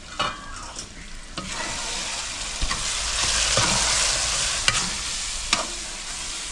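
Onion and tomato masala sizzling in a metal pot as it is stirred with a steel spoon. The sizzle swells in the middle, and the spoon clinks and scrapes against the pot about five times.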